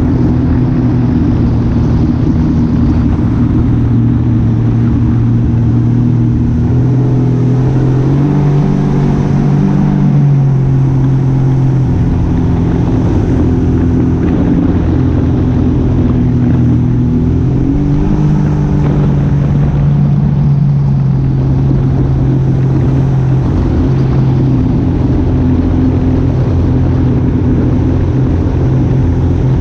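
A motor vehicle's engine running steadily, its pitch rising and then settling back twice, about a quarter and two-thirds of the way through.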